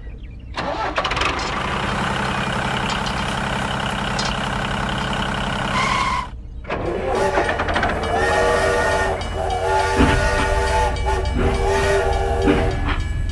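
Battery-powered toy steam train's electronic sound effects: about six seconds of steady hissing chugging, then several held whistle blasts in a row.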